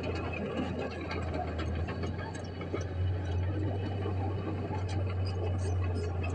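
Small crawler bulldozer's diesel engine running with a steady low drone as it pushes dirt, with scattered light clinks and rattles over it.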